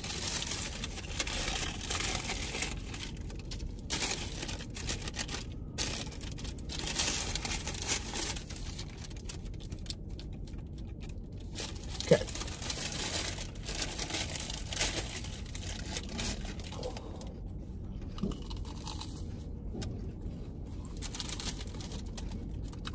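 Waxed-paper churro wrappers crinkling and rustling as they are handled, with soft chewing and crunching of the churros. One brief louder sound comes about halfway through.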